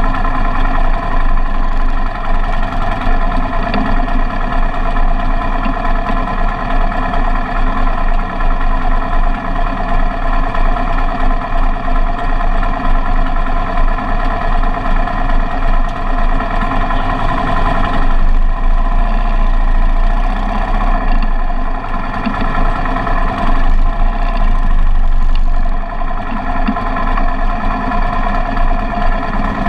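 Motorcycle engine running steadily at an even speed, with a slight change in its note about two-thirds of the way in.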